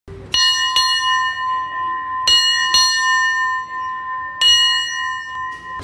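Railway station bell, a small bell struck in pairs of strokes, three pairs in all, each stroke ringing on with a clear high tone. It cuts off suddenly at the end.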